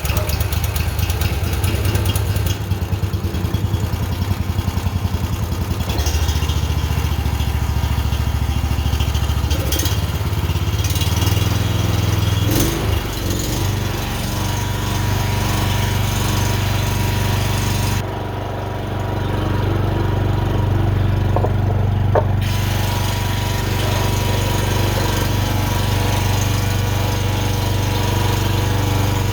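Honda portable generator's engine running just after starting, with the choke on and a freshly cleaned carburetor. It runs roughly and unevenly at first, shifts pitch about twelve seconds in, then runs more steadily.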